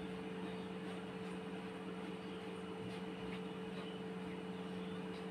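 Steady mechanical hum from a running household appliance or fan, with a few faint soft taps.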